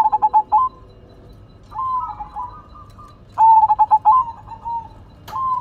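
Zebra dove (perkutut) cooing: four phrases of quick staccato coos, with a sharp click about five seconds in.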